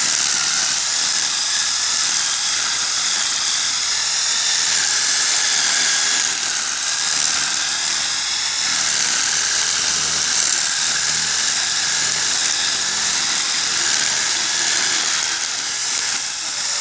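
Power drill fitted with a grass-cutting attachment, running steadily at high speed as it cuts grass, giving a continuous high-pitched whine.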